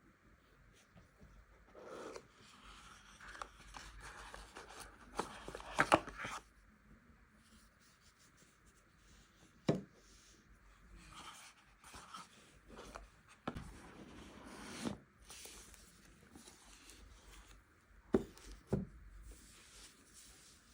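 Handling of a smartphone and its packaging: soft rubbing and rustling broken by a few sharp taps and clicks. The loudest is a cluster of taps about six seconds in, with a single click near ten seconds and two more near eighteen seconds.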